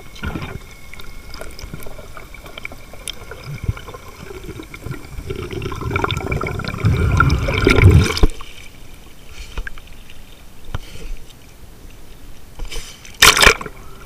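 Water sloshing and gurgling against a handheld camera as it is lifted through the surface. The noise builds to a loud peak and cuts off abruptly about eight seconds in, when the camera clears the water. Near the end a short, loud splash comes as it plunges back under.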